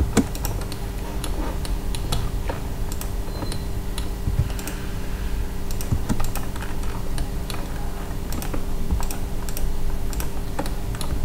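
Computer keyboard and mouse clicks, scattered and irregular, over a steady low electrical hum.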